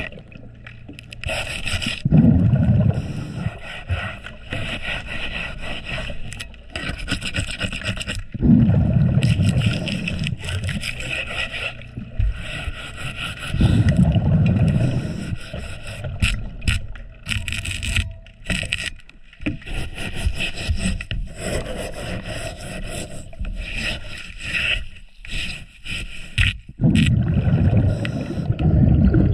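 Scraping and scrubbing of marine growth off a boat's propeller and running gear, heard underwater. About every six seconds a loud, low rush of exhaled scuba regulator bubbles covers it.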